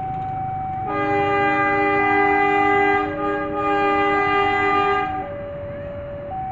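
Diesel locomotive's air horn sounding a long, loud multi-note chord for about four seconds, with a brief dip about halfway. Underneath, a level-crossing warning alarm alternates between two tones about once a second.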